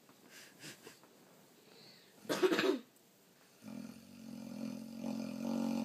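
A dog snoring: one short, loud, noisy snore a little over two seconds in, then from about halfway a long, steady-pitched snore that grows louder toward the end.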